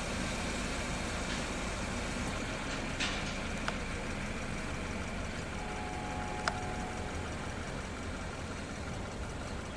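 Steady low engine-like rumble with a few faint sharp clicks.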